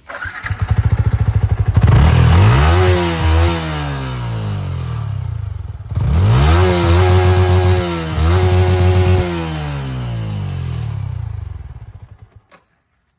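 Yamaha MT-15's 155 cc single-cylinder four-stroke engine on its stock exhaust, starting up and then revved twice, each rev climbing in pitch, holding and falling back, with a deep, bassy note. It dies away about a second before the end.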